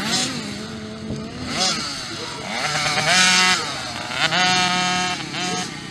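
Small two-stroke mini motocross bikes of 50 to 65 cc revving hard on the track. The high buzzing engine note climbs and drops again and again with throttle and gear changes. The loudest stretch comes about three seconds in, where a nearer bike holds a high rev.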